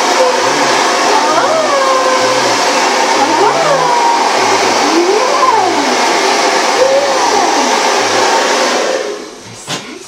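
Hand-held hair dryer blowing steadily, cut off about nine seconds in. A bulldog makes rising and falling whining grumbles over it.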